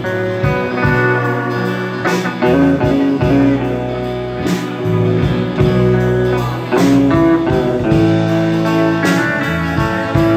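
A live band playing a blues instrumental on electric guitars, electric bass and drum kit, with a cymbal crash about every two and a quarter seconds.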